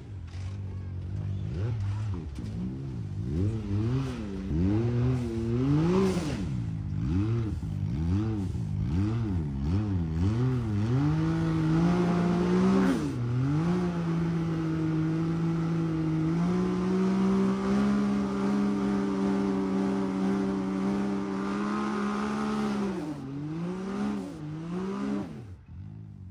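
Side-by-side UTV engine blipping the throttle up and down about once a second, then held at high revs for about ten seconds with a step up partway, as on a hill climb. The revs dip a few times and the engine drops off sharply near the end.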